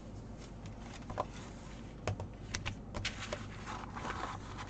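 Light handling noise: scattered soft clicks and a brief rustle near the end, as kit materials and their plastic packaging are moved about.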